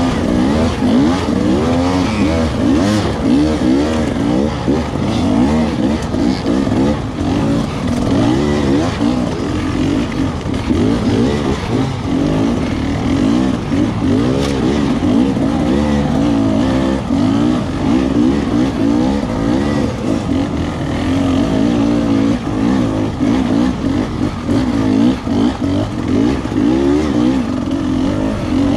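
Dirt bike engine, close up, revving up and down over and over as it labours up a steep, rocky hill climb, the throttle blipped constantly to find grip, with other dirt bikes running alongside.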